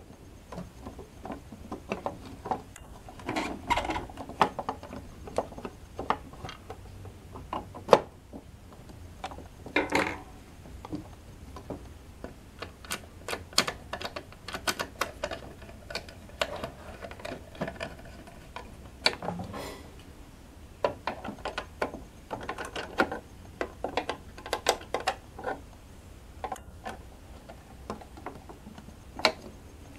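Plastic end cover of a Jaguar portable sewing machine being fitted back on and screwed down with a screwdriver: irregular clicks, knocks and scrapes of plastic against plastic, with handling noise.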